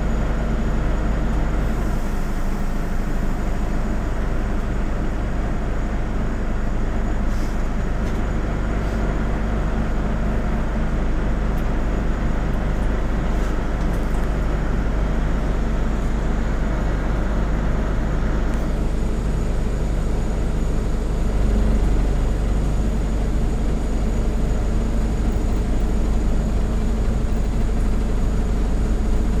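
Autosan Sancity M09LE city bus under way, its engine and road rumble heard from inside the bus: a steady low drone with a few faint clicks, swelling slightly about two-thirds of the way through.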